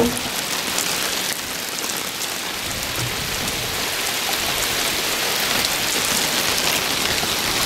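Heavy rain falling on the sea surface: a steady, even hiss of countless drops striking the water.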